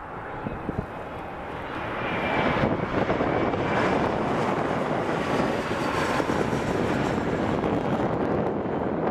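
Embraer ERJ-170-100 jet with its twin CF34-8E turbofans on landing approach, gear down, its rush growing louder over the first three seconds as it comes close and then holding steady, with a faint high fan whine.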